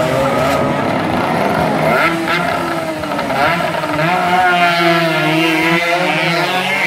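Motorcycle engines revving up and down, then one held at high revs from about four seconds in as a bike launches off the line.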